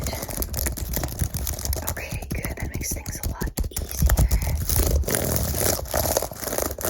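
Fast, dense scratching and clicking close to the microphone, many quick strokes a second.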